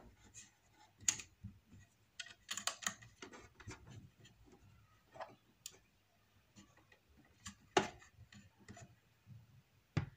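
Irregular small plastic clicks and taps from a syringe's tube being fitted against the cartridge carrier of an Epson inkjet print head, with a quick cluster a few seconds in and the sharpest tap near the end.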